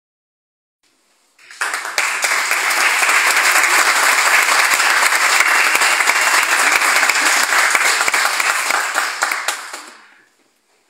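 Audience applauding. It starts about a second and a half in and dies away near the end.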